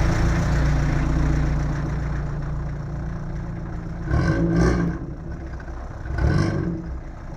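Audi TT engine idling, then blipped twice in quick succession about four seconds in and once more a couple of seconds later, each brief rev dropping straight back to idle.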